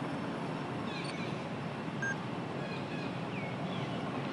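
Steady outdoor background noise with a few faint, short, high falling chirps scattered through it, and one brief high peep about two seconds in.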